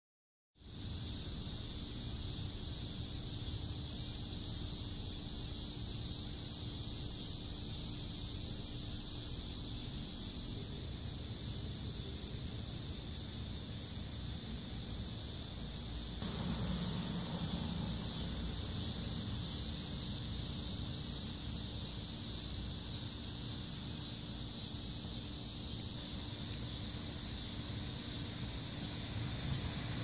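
Cicadas buzzing: a steady, unbroken high-pitched drone, over a low rumble and a faint steady hum.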